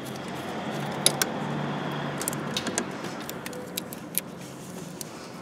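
Metal clinks and scraping of a wrench working the electrical terminal nuts on a car's starter motor, with a few sharp clicks about a second in and more around the middle, over a steady low hum.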